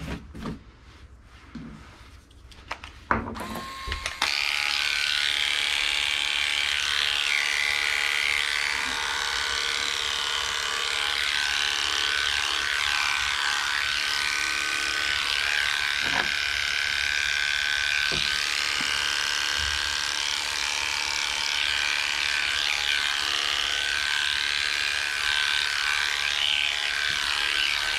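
Electric dog grooming clipper switched on about four seconds in, then running with a steady buzz as its blade is worked over the Shih Tzu's leg coat. A few light clicks come before it starts.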